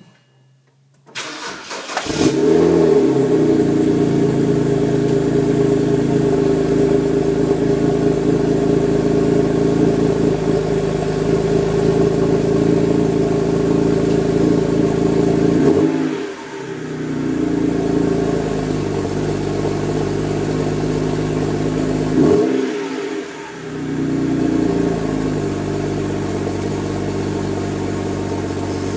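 BMW E90's N52 inline-six cold-starting through a BMW Performance Exhaust with the factory resonator: the starter cranks briefly, the engine catches and settles into a loud, steady, raised cold idle at the tailpipes. Twice, about six seconds apart, the exhaust note dips and swings in pitch, and afterwards the idle sits a little quieter.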